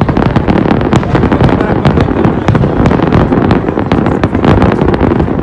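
Fireworks going off in rapid succession: a dense, loud, unbroken run of bangs and crackles, many a second.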